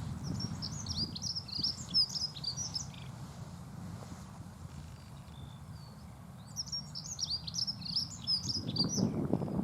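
Dunnock singing two short, fast, high warbling song phrases, one at the start and another about six and a half seconds in, over a low background rumble.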